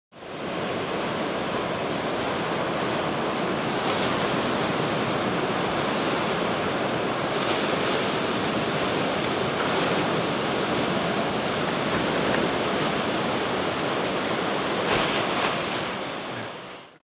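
Ocean surf: waves breaking and white water rushing in a steady wash, with a brief louder surge near the end.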